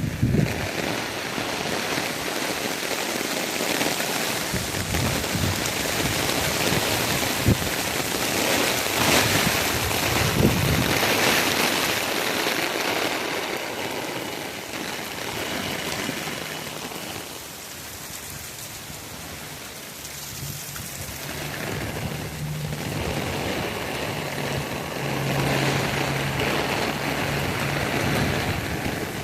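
Heavy rain falling as a continuous hiss that swells and eases, dipping for a few seconds past the middle. A steady low hum comes in about two-thirds of the way through.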